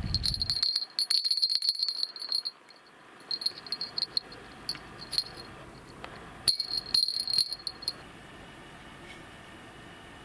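Small brass bite-alarm bell on a feeder rod tip jingling in three bursts of rapid ringing, with short pauses between.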